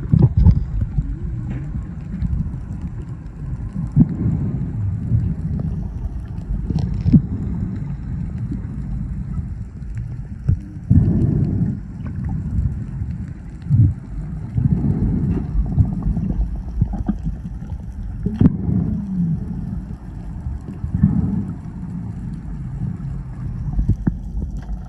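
Muffled underwater noise picked up by a submerged camera: a steady low wash of moving water, with several irregular louder swells and splashy surges.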